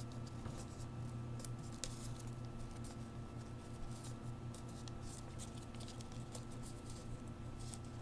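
Paper being folded by hand: faint rustling and crackling as an origami paper plane's mirror fold is made and creased, over a steady low hum.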